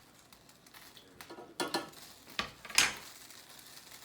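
Metal kitchen utensil clinking and knocking against a cooking pot of rice: a handful of sharp strikes, the loudest about three seconds in.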